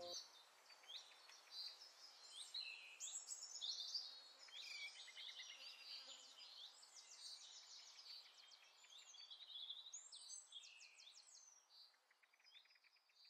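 Faint chirping and twittering of many small birds: quick high chirps, short sweeping notes and rapid trills overlapping, thinning out near the end.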